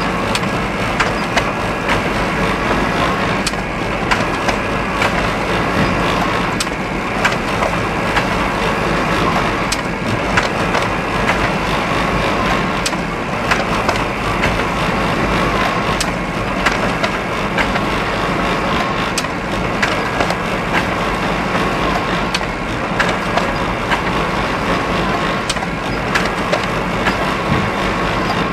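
Factory machinery running: a loud, steady mechanical din with a faint steady whine, broken by frequent irregular clanks and knocks.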